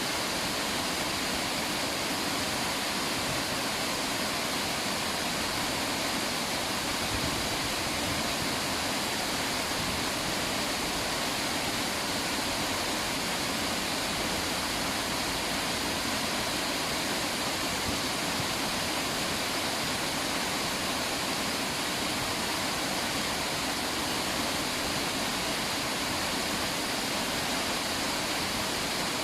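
River water rushing and babbling over rocks, a steady even noise with no breaks.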